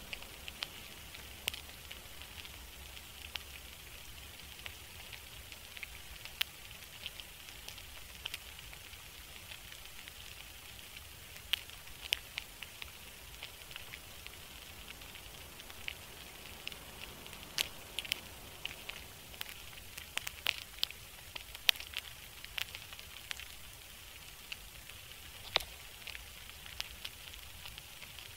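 Ambient crackle track: a steady soft hiss with irregular sharp pops and crackles scattered over it, the pops coming more often and louder in the second half.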